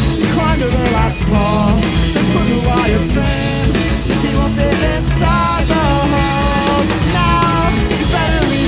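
A full rock band playing live: interlocking electric guitar melodies over bass and a drum kit, loud and continuous.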